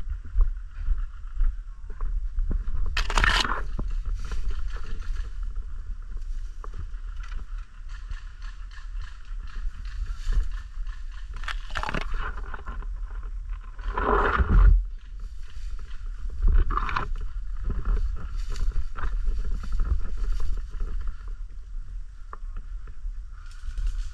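Handling and movement noise on a body-worn camera: a steady low rumble with rustling, and a few louder scrapes about 3, 12, 14 and 17 seconds in.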